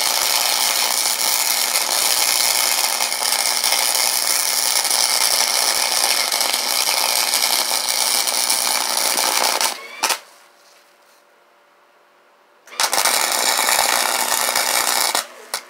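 Flux-core wire-feed welder arc crackling steadily while laying weld on a go-kart spindle. It stops about ten seconds in and starts again about three seconds later for a shorter run.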